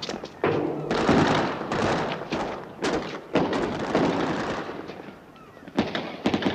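Gunfire in a gunfight: about half a dozen sharp shots, spaced irregularly a fraction of a second to a few seconds apart, each trailing into a loud noisy echo.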